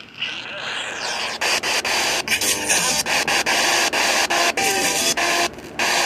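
Loud radio static and interference noise, choppy and crackling, kicking in about a second and a half in and breaking up with short dropouts throughout.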